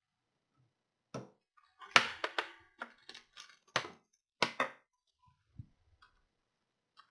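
A series of sharp clicks and knocks of small hand tools being handled and set down, loudest in a quick cluster about two seconds in, then several more over the next few seconds.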